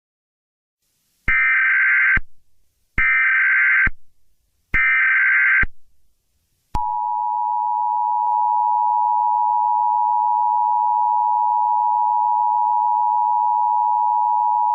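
Emergency Alert System tones: three short bursts of warbling digital data tones (the SAME header), each about a second long, then the steady two-tone EAS attention signal, a harsh continuous dual tone that starts about seven seconds in.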